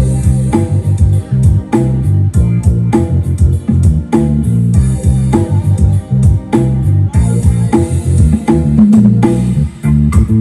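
Loud music with a prominent bass guitar line, guitar and a drum kit keeping a steady beat.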